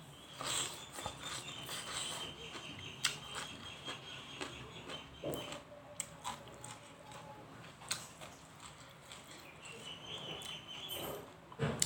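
Close-miked eating sounds: chewing with scattered wet clicks and smacks of the mouth.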